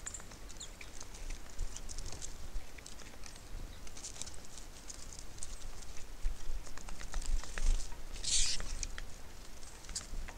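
Birds feeding at a feeder: scattered light taps and clicks of beaks pecking and feet landing on the feeder, with a brief rustle about eight seconds in.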